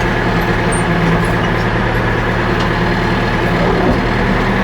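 Backhoe tractor's engine running steadily under load as the front loader bucket is driven into a pile of dirt and manure.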